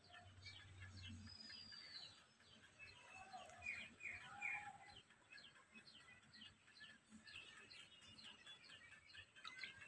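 Faint birds chirping over near silence, with a few short calls in quick succession about three and a half to four and a half seconds in.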